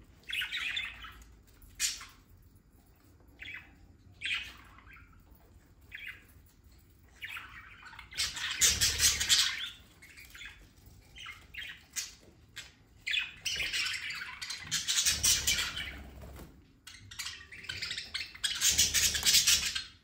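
Budgerigars chattering and squawking in irregular bursts, with the busiest, loudest stretches about eight seconds in, around fifteen seconds, and just before the end.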